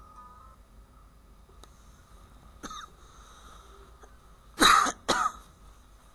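A person coughing twice in quick succession, with a fainter throat sound a couple of seconds before.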